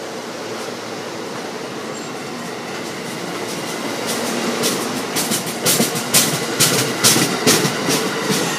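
Amtrak Keystone passenger train's coaches rolling past along the platform: a steady rumble that grows louder, with wheels clicking over rail joints from about halfway through, several clicks a second.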